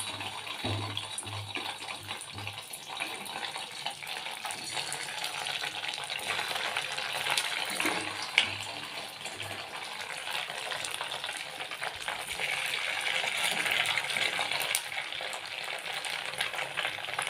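Chhana (cottage-cheese) balls sizzling steadily as they deep-fry in hot oil in a kadai, with a single sharp click about eight seconds in.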